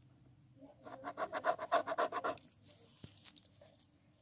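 Black pen scratching quickly back and forth on paper along a ruler, thickening a drawn line, for about two seconds, followed by a few faint taps.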